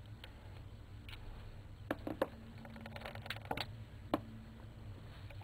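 A handful of faint, short clicks and light knocks, irregularly spaced, over a low steady hum.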